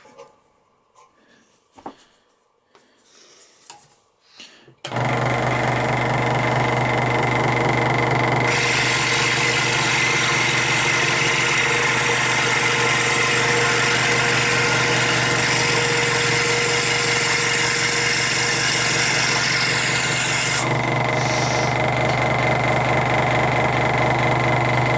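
Old electric scroll saw switched on about five seconds in and running steadily with a steady hum. Its 360 spiral blade is cutting a thin strip of wood, adding a rasping hiss from a few seconds after start-up until near the end.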